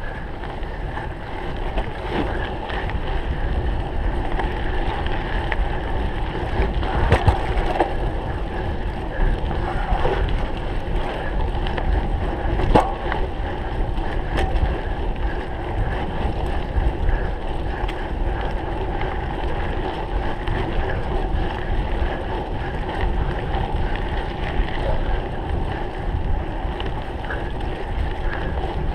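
Wind rushing over the microphone and a cyclocross bike rattling over rough ground at race pace, with a few sharper knocks from bumps.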